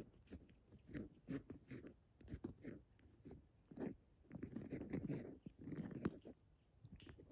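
Bamboo rat moving about in its dug-open burrow: faint, irregular scuffling and scraping against soil and roots, with small clicks.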